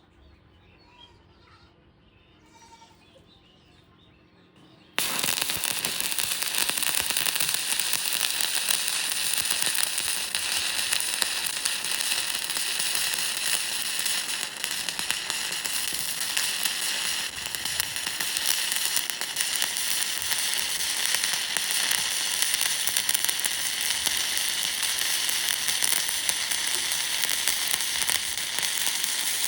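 Electric welding arc struck about five seconds in, then crackling and sizzling steadily without a break. Faint birdsong before the arc starts.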